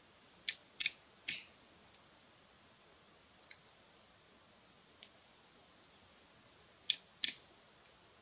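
Sharp wooden knocks of a bushcraft knife blade being struck down into small sticks of split firewood on a log: three quick knocks about half a second in, a single one midway, and a pair near the end.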